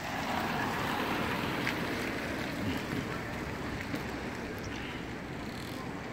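Steady rushing noise that slowly fades, with a few faint ticks.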